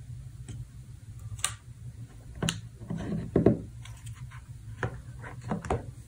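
Scattered light clicks and taps of a plastic Casio FX-880P pocket computer being handled and turned over on a tabletop, with a fuller knock of handling about halfway through.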